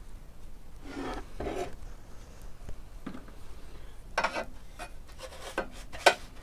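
Handling noise from a large old loudspeaker's metal frame as it is lifted and turned over by hand: rubbing and scraping, with a few knocks and a sharp tap near the end.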